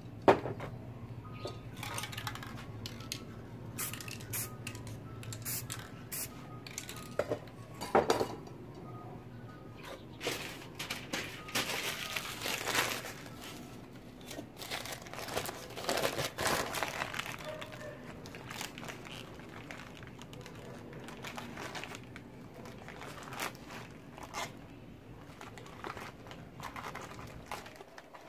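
Paper crinkling and rustling as a crumpled magazine page is handled and dabbed onto a wet spray-painted board, with scattered clicks and knocks.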